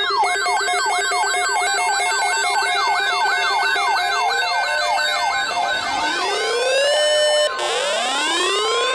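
Electronic siren tones: a fast repeating yelp sweep over a steady low tone, fading after about four seconds into slower rising wails. The wails break off and start climbing again about seven and a half seconds in.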